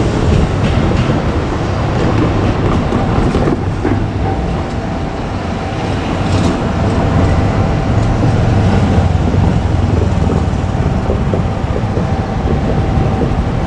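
KiHa 200 diesel railcar running by with a steady low diesel rumble and a few clicks from the rails. A steady higher tone joins about four seconds in.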